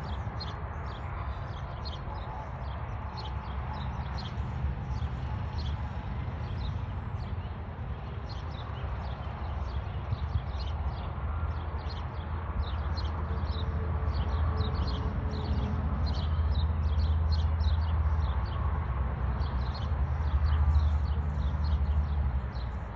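Small birds chirping rapidly and continuously in short high notes, over a low rumbling noise on the microphone that grows louder in the second half.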